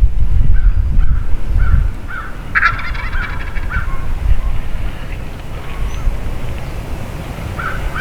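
Wild turkey gobbling once, a rattling gobble about two and a half seconds in, among shorter bird calls. Wind buffets the microphone in the first two seconds.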